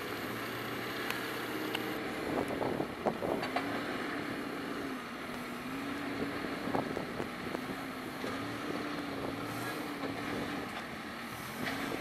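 Claas Scorpion telehandler's diesel engine running, its revs rising and falling in waves as it lifts and carries big square straw bales, with several knocks and clanks about two to four seconds in.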